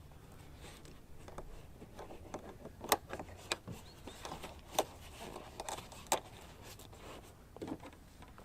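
Scattered sharp clicks and knocks of things being handled, the loudest about three, three and a half, five and six seconds in.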